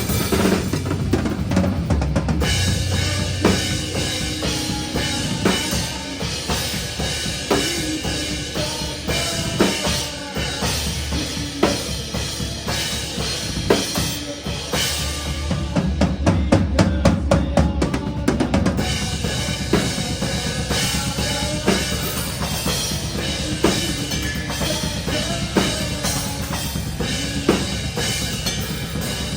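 Metalcore band playing live, heard close at the drum kit: kick drum and snare hits stand out over the rest of the band. About halfway through the drumming turns into a stretch of very fast, dense strokes for a few seconds.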